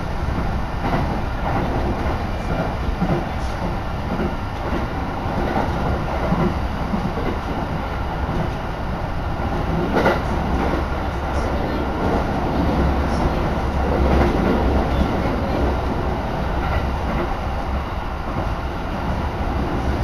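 Inside the car of a JR Joetsu Line train running along the line: a steady rumble of wheels on rail, with one sharp click about halfway through.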